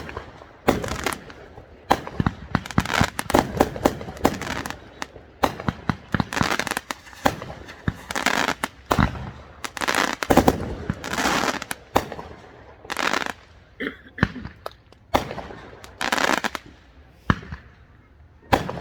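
Fireworks going off: a dense, irregular string of sharp bangs and crackling reports, many overlapping, with short echoing tails.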